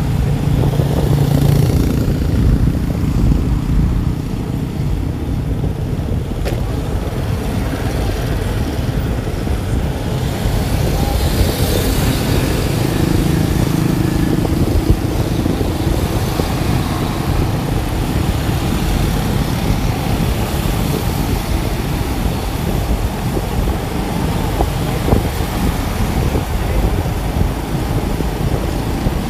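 Motorbike-heavy street traffic heard while riding along: a steady low rumble of engines and road noise, with wind on the microphone.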